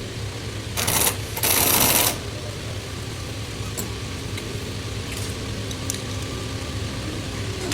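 Overlock sewing machine run at speed in two short bursts, about a second in, followed by a steady low machinery hum with faint scattered ticks.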